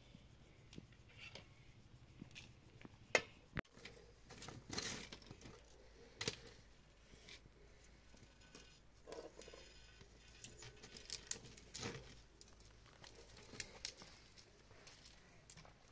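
Quiet, scattered clicks, taps and rustles of hands handling things while cooking.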